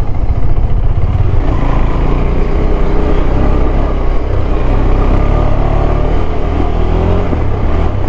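KTM 390 Adventure's single-cylinder engine running at low speed on a dirt track, heard from the rider's helmet with a heavy low rumble, its note wavering slightly with the throttle.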